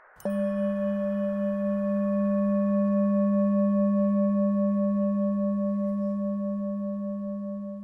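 A single struck, bell-like metal tone, such as a singing bowl's, starts about a quarter second in and rings on with a slow wavering in its overtones. It fades gradually toward the end.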